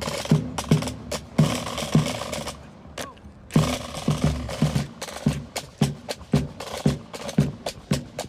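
Background music with a steady drum beat, dropping out briefly about three seconds in before coming back with a hard hit.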